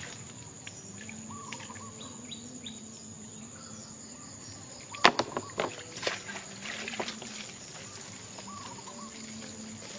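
A cluster of sharp knocks and rattles about halfway through as a woven bamboo fish trap is lifted and shaken out. Under it a steady high insect drone, with a few bird calls.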